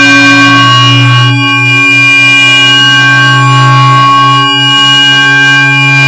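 Computer-synthesized electronic drone: a loud, steady buzzy tone with many overtones, like a bagpipe drone, briefly dipping twice.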